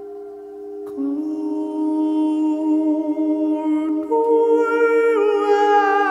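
Meditative music: a steady ringing tone, like a crystal singing bowl, joined about a second in by a humming voice holding long notes that steps to new pitches twice near the end.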